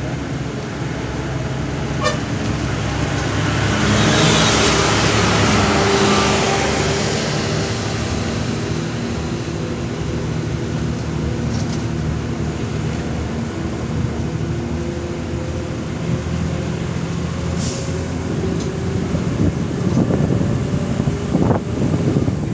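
Engine and road noise of a moving vehicle, heard from inside it. It swells louder with a stronger engine note about four to seven seconds in, then settles back to a steady drone.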